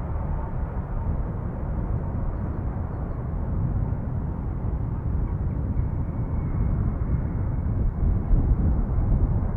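Low rumble of an aircraft's engines heard outdoors, swelling unevenly in level, with a faint high whine joining about six seconds in and the rumble at its loudest near the end.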